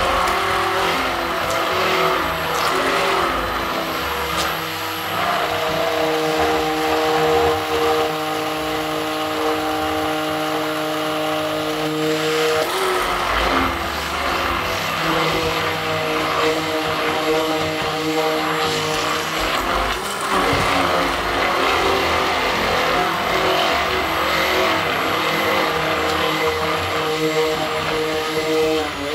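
Hand-held immersion blender running in a bowl of melted butter with sugar and vanilla sugar, whipping it until foamy. A steady motor whine whose pitch shifts a few times.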